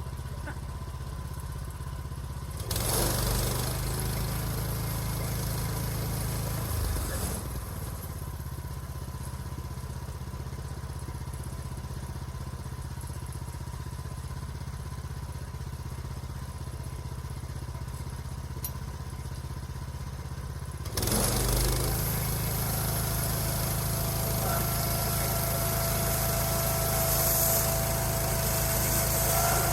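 A small gasoline engine running steadily, throttled up for a few seconds about three seconds in, then throttled up again at about 21 seconds, where it stays louder to the end. A thin whine joins it near the end.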